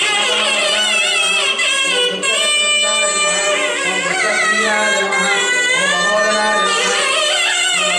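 Devotional South Indian temple music: a sustained melody line full of sliding, wavering ornaments, over a steady drone.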